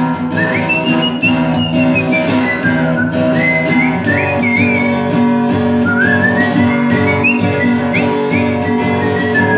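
Acoustic guitar strummed in a steady rhythm while a man whistles the song's melody over it, the whistled line rising and falling in long phrases, an instrumental break between sung verses.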